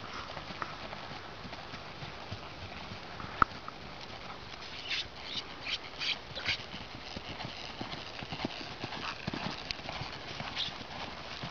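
Hoofbeats of a ridden Haflinger mare moving over grass, with a single sharp click about three and a half seconds in.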